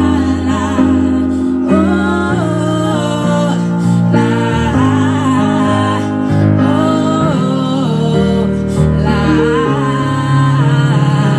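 Two women singing together live into a single microphone, backed by held chords on an electronic keyboard.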